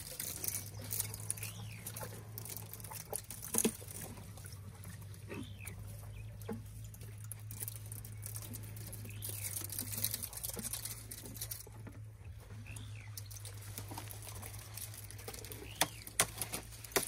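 Elephants chewing thorny branches close up: irregular crunching and crackling as the twigs and thorns are ground between the molars, with brushing of branches against trunk and mouth.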